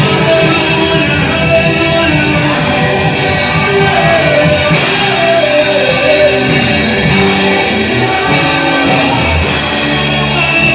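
Gospel-style music played loud and without a break: singing voices over a full instrumental backing.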